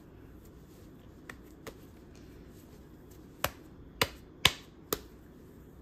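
Soft white slime squeezed and pressed in the hands, popping as air pockets burst: two faint clicks a little over a second in, then four sharp pops about half a second apart, the third loudest.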